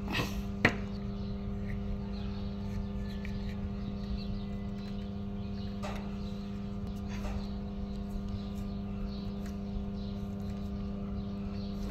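A few sharp metallic clicks and taps as the parts of a welding electrode holder are handled and fitted together, the loudest about a second in, over a steady low hum.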